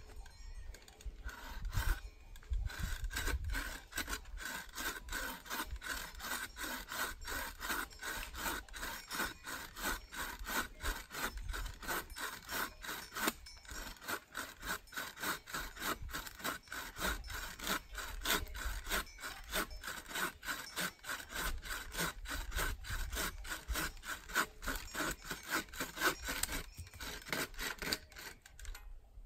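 Hand saw cutting through wood with a quick, even rhythm of back-and-forth strokes. It starts about a second in and stops just before the end.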